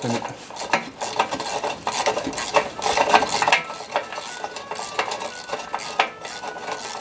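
Wrench working a loosened, rusty exhaust bolt out under a car: a rapid, irregular run of small metallic clicks and scrapes of steel on steel.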